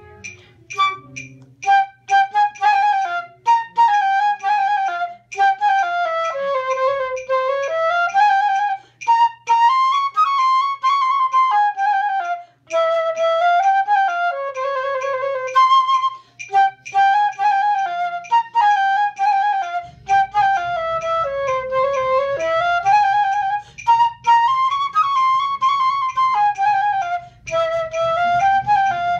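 Flute playing a melodic practice passage at a slow practice tempo, in short rising and falling phrases with brief breaks between them.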